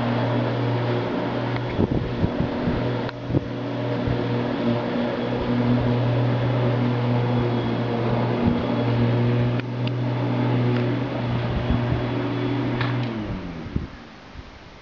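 A machine's motor humming steadily, which slides down in pitch and stops about 13 seconds in.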